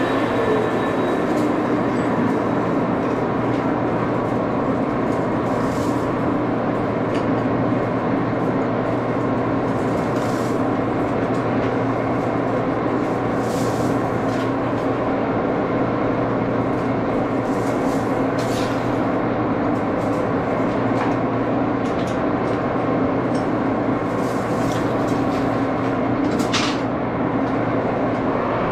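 An 83-year-old Baby Axelson gear-head lathe running steadily, turning an aluminum bar, with short clicks and rattles of stringy aluminum chips now and then.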